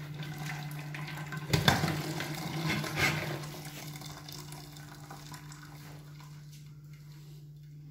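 Hot cooking water pouring out of an aluminium pot past its tilted lid as boiled tapioca is drained. The pour is strongest in the first few seconds and thins to a trickle about halfway through, over a steady low hum.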